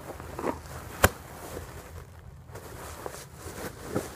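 Plastic trash bag crinkling and rustling as it is folded and pressed by hand, with one sharp knock about a second in.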